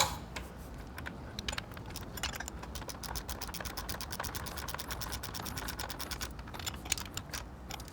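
Ratchet wrench with a 16 mm socket clicking in a fast, even run as it turns a nut, the clicks faint.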